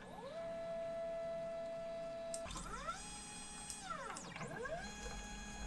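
Stepper motors of a 3018 desktop CNC router jogging its axes under software control. Each move is a steady whine that glides up in pitch as the motor speeds up and glides down as it stops. There are four moves in a row, the held pitch a little higher from about halfway.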